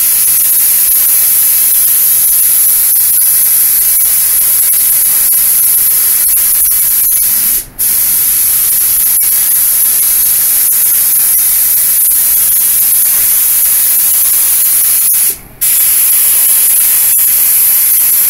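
Compressed-air gravity-feed paint spray gun hissing steadily as the final coat of base coat goes on, with two short breaks, about 8 and 15 seconds in, between passes.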